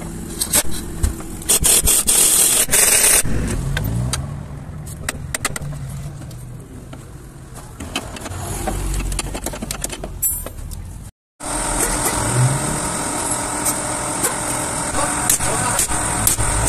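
Pneumatic impact wrench hammering on an underbody bolt for about a second and a half, then scattered clinks and knocks of steel tools on metal. Partway through, the sound cuts out for an instant, and a steady high whine then runs under the clinks.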